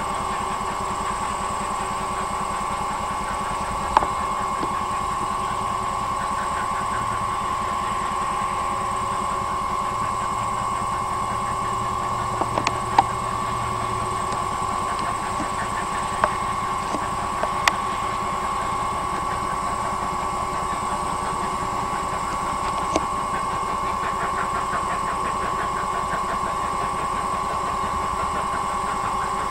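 Steam locomotive working in the distance, its rhythmic exhaust heard under a steady high whine, with a few sharp clicks.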